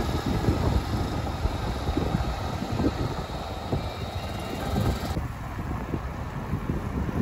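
Wind rumbling unevenly on the microphone of a camera carried along a road by bicycle, with a steady hiss of road and traffic noise that cuts off abruptly about five seconds in.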